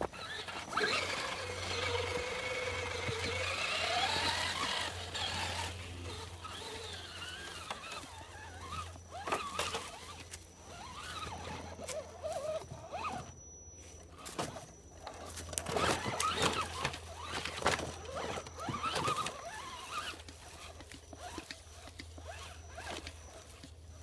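An RC rock crawler's 35-turn electric motor and gears whine, the pitch rising and falling as the throttle changes. Tyres click and scrape over rocks and crunch through dry leaves.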